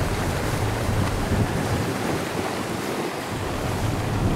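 Water rushing and foaming over rocks in a tidal channel, a steady wash of noise, with wind buffeting the microphone.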